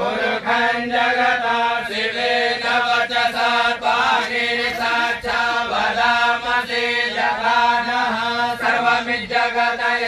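Voices chanting Hindu mantras, recited close to one steady pitch, with short pauses between phrases.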